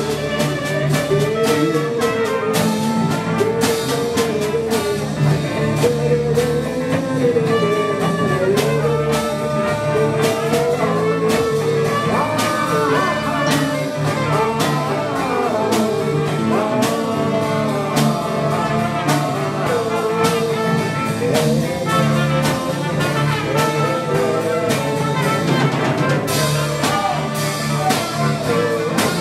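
Live band jamming: trumpets and alto saxophone play wandering melodic lines over a drum kit and a repeating low accompaniment. The cymbals grow denser near the end.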